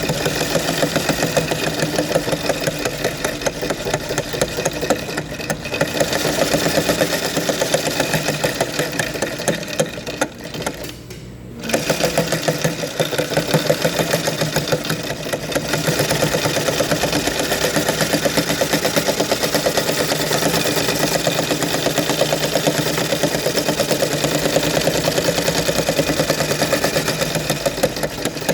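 Sewing machine stitching at speed, a fast steady needle clatter. It slows and quietens for about a second around ten seconds in, then runs on at full speed.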